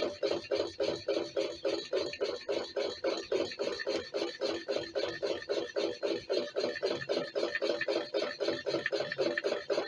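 Homemade alpha-type Stirling engine running, with a rhythmic rasping knock and grind about four times a second. The builder puts the loud knocking and grinding down to its new carbon graphite piston slides.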